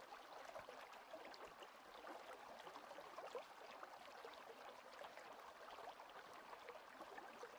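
Near silence: faint outdoor ambience, a soft even hiss with a few tiny ticks.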